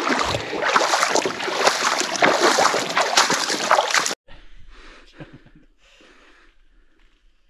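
Water splashing and sloshing at a creek crossing, loud and continuous, cutting off abruptly about four seconds in; after that only faint scattered sounds.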